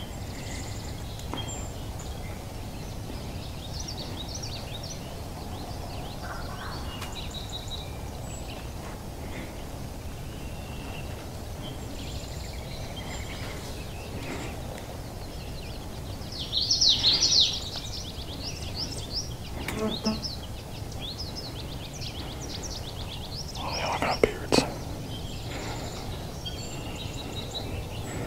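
Wild turkey gobbling, a rattling gobble twice in the latter half, the second louder, against ongoing songbird chirping that includes a loud burst of high chirps just past halfway.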